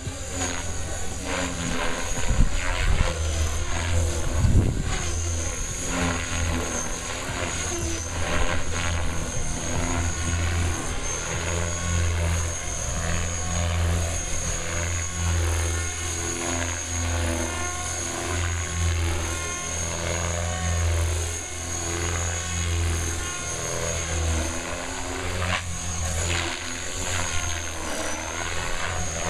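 Compass Atom 500 electric radio-controlled helicopter flying aerobatics. Its main rotor makes a low, steady drone, with a thin high motor whine over it, and both swell and ease as it manoeuvres.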